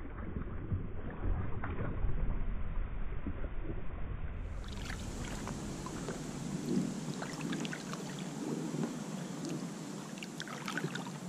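Double-bladed kayak paddle stroking through calm water, with repeated splashes and drips off the blade. A low rumble fills the first few seconds.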